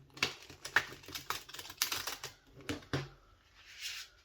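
A deck of matte-finish tarot cards being shuffled by hand: quick irregular flicks and slaps of the cards, with a brief papery sliding hiss near the end.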